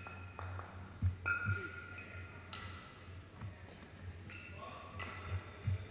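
Iron kettlebells clinking and ringing against each other as two-bell long cycle (clean and jerk) is lifted, with a few dull thuds, over a steady low hum and faint voices in a large hall.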